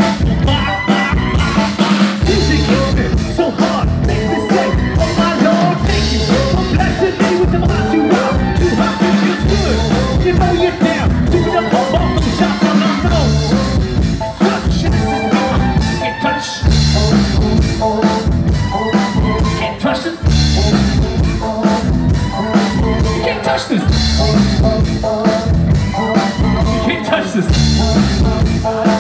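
Live band playing loud through a stage PA: a drum kit keeping a steady beat under electric bass.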